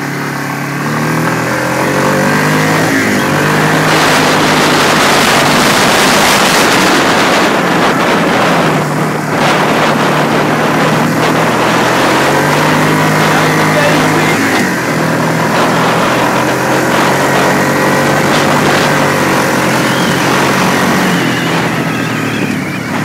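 Off-road dirt bike engine running hard, its pitch shifting up and down a few times as the throttle and gears change. Heavy wind rush on the microphone, strongest in the first third.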